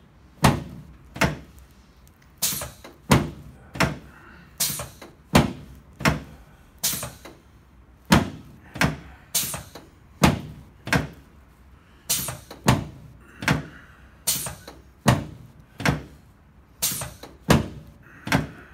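Repeated sharp knocks on a chiropractic adjusting table during a sacroiliac joint adjustment, about one and a half a second and fairly evenly spaced.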